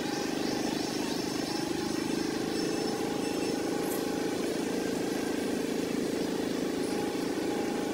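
Steady low engine hum, unchanging throughout, as from an idling motor.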